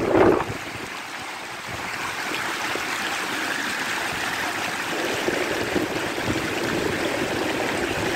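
Floodwater rushing steadily, a continuous hiss of running water. Wind buffets the microphone in the first half-second.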